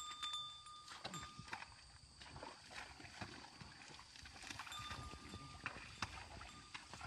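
Water buffalo pulling a plough through a wet rice paddy: hooves and the ploughshare squelching and sucking in the mud, with scattered irregular splats and knocks.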